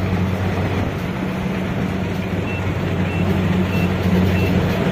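Rice combine harvester's diesel engine and threshing machinery running steadily under load, a constant low hum with mechanical noise. From about halfway in, a short high beep repeats about every half second.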